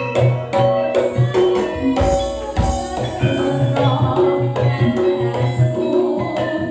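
Campursari music playing, with a hand drum keeping a regular beat under held melodic notes.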